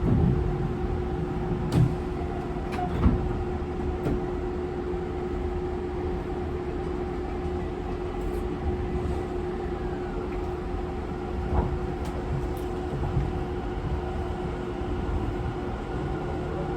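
Tobu 50090 series electric train car heard from inside while running at steady speed: a steady whine from its traction motors over wheel rumble, with a few knocks from rail joints. The uploader suspects this car's motors are a different type, since they give a slightly unusual sound.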